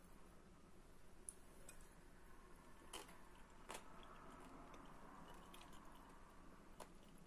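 Near silence with quiet chewing of a crunchy raw vegetable salad and a few soft clicks spread through it.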